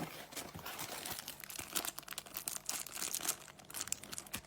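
Packaging of a boxed puzzle being opened by hand: a run of irregular crackles from the wrapping being handled and torn.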